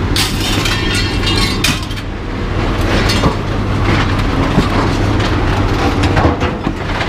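Heavy scrap metal being shoved and dragged off a vehicle bed, scraping and clanking, with a cluster of clatters in the first two seconds, over a steady low hum.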